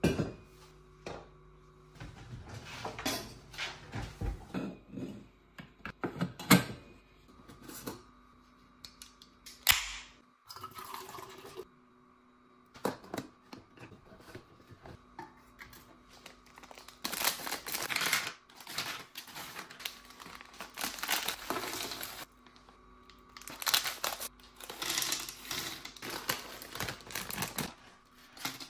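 Knocks and clicks of a tumbler and a plastic snack tray being handled on a countertop, then long stretches of snack packets crinkling and tearing and dry snacks such as pretzels and crisps being tipped into the tray.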